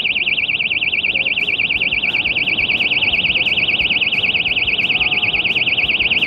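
Personal anti-robbery alarm sounding: a loud, high-pitched electronic siren warbling rapidly up and down, without a break.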